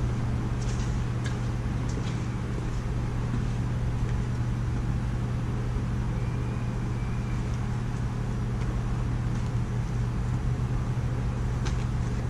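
Propane burner running steadily under a cast iron disco wok, a constant low rumble with an even hiss above it, as the wok is heated for seasoning. A few light clicks and rustles near the end.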